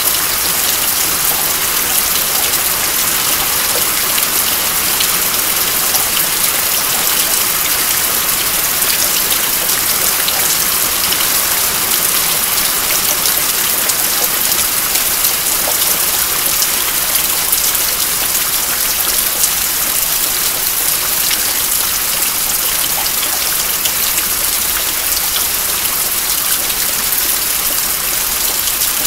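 Steady rain falling, a dense even hiss with many fine drop ticks, with water dripping off the roof edge.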